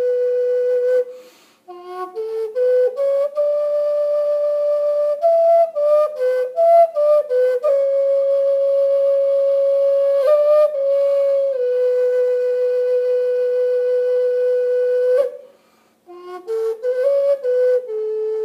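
Solo flute playing a slow melody: short runs of stepping notes between long held tones, with two brief pauses for breath, about a second in and near the end.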